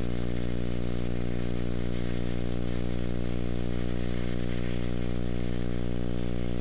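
Steady electrical hum, a stack of even low tones, with an even hiss above it from a 7018 stick-welding arc burning along an overhead fillet weld.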